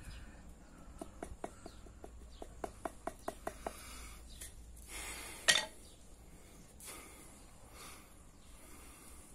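Light hard clicks and knocks of a wooden hand-drill fireboard being handled against a tile floor: a quick run of about a dozen small taps, then one sharper knock about halfway through.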